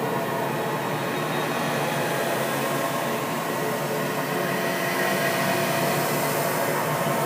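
Steady droning noise with faint held tones running through it, an eerie horror-ambience sound effect; it swells slightly about two-thirds of the way in.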